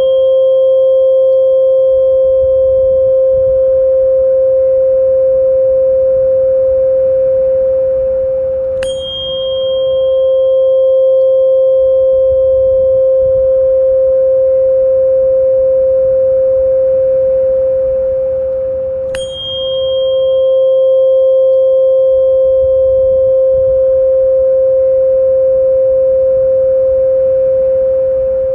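Sustained pure tone just above 500 Hz with a fainter overtone near 1 kHz, from a tinnitus-relief frequency track. A bright chime-like strike rings out about every ten seconds, twice here, its high ring fading over a few seconds.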